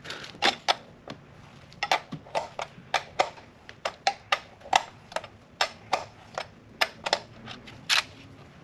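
Hand tools clicking and tapping on metal while the high-pressure fuel line fittings on an Audi 4.2 V8 are undone: a series of sharp, irregular clicks, about two or three a second.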